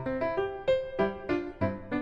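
Background piano music, single struck notes in an even rhythm of about three a second.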